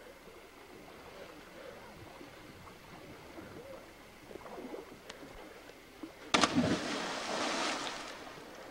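A cliff jumper hitting the river: a sudden loud splash about six seconds in, with the rush of spray trailing off over the next two seconds.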